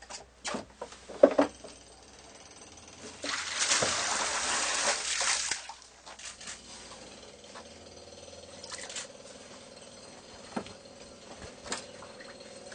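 A broken boat-hook pole knocking as it rams a towel into a leaking through-hull hole in a yacht's flooded bilge, a few sharp knocks, the loudest about a second in. Then seawater rushes and splashes for about two seconds, a few seconds in, followed by small scattered clicks.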